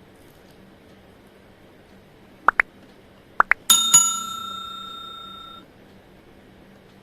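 Two pairs of quick rising chirps, then a bell struck twice in quick succession, ringing bright and metallic for about two seconds before cutting off abruptly.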